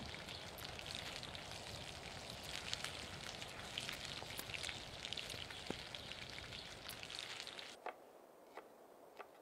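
Chicken pieces sizzling and crackling in oil in a cast-iron pan over a wood fire. Near the end the frying cuts off and a cleaver chops herbs on a wooden board, three sharp knocks.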